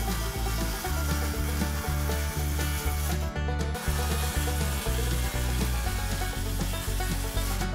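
Cordless circular saw cutting through a wooden sheet, a dense steady hiss that stops for a moment a little over three seconds in and then starts again for a second cut. Background music with a steady bass line plays under it.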